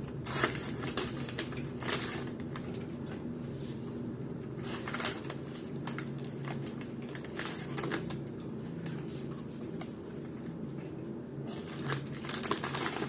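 Scattered crinkles, rustles and light clicks of takeout food packaging being handled while eating, over a steady low hum.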